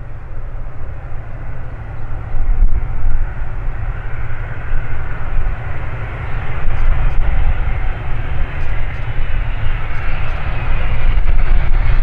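Cessna Citation CJ3 business jet's twin Williams FJ44 turbofan engines running, the noise building steadily in loudness, with a faint high turbine whine coming in near the end.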